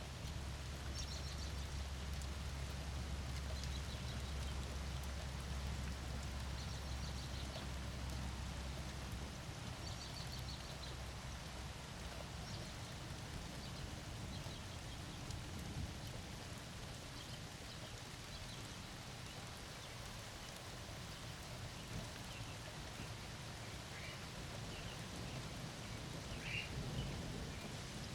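Steady rain falling, with faint bird chirps now and then that come more often near the end.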